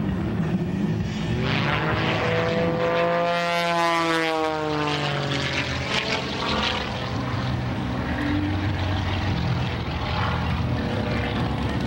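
Pitts S-2S aerobatic biplane's six-cylinder Lycoming engine and propeller droning overhead through an aerobatic routine, the note rising and then falling in pitch a couple of seconds in.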